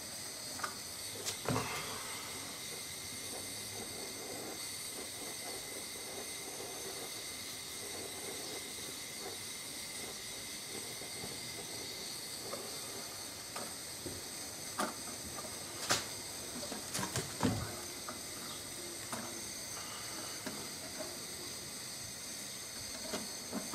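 Steady hiss of a portable butane canister stove's gas burner running at full heat under a pot of molten lead, with a few sharp clicks and knocks about a second and a half in and again between about 15 and 18 seconds.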